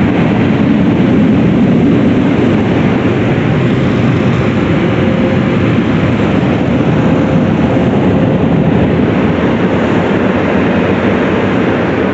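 Car wash air-dryer blowers running: a loud, steady rush of air with a faint steady hum, heard from inside the car.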